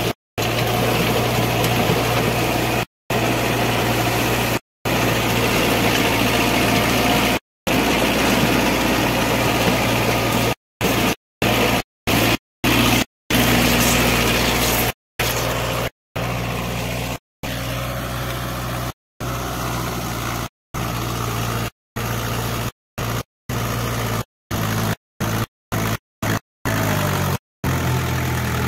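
Diesel engine of a VST Shakti MT 270 Viraat compact tractor running steadily while it drives a rotary tiller through the soil. The sound breaks off into brief silences many times, at the cuts between clips.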